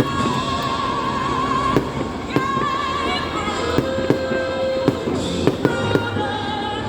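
Fireworks going off in a string of sharp bangs, most of them in the second half, over loud music with a long-held wavering melody.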